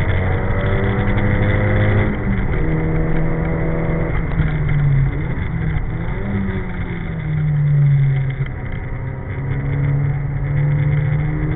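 Nissan Silvia S14's four-cylinder engine, heard from inside the cabin, running hard on a lap. Its pitch drops at shifts about two and five seconds in, eases off around eight seconds, then builds again near the end, over steady wind and tyre noise.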